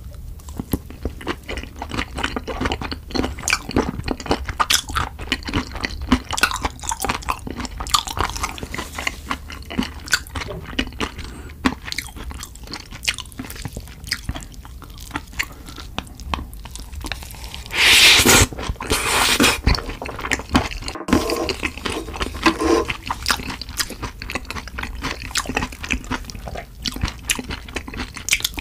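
Close-miked wet chewing and crunching of spicy Korean meat dishes (chicken feet, pork cartilage, intestines), with rapid sticky mouth clicks and smacks. About two-thirds of the way in there is a louder burst of noise lasting about a second and a half.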